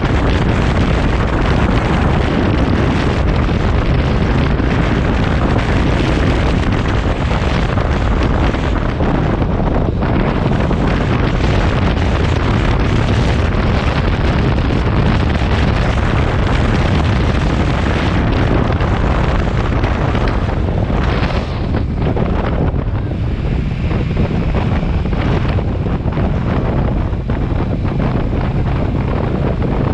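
Wind buffeting the microphone of a camera on a moving motorcycle at about 55 km/h: a loud, steady rush that eases slightly for a few seconds a little over two-thirds of the way through.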